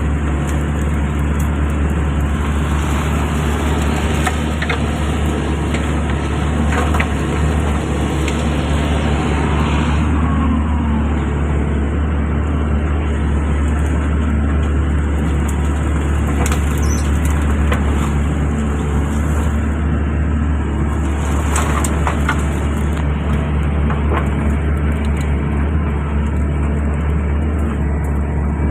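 Diesel engine of a hydraulic excavator running steadily at a constant speed, with a few faint knocks over it.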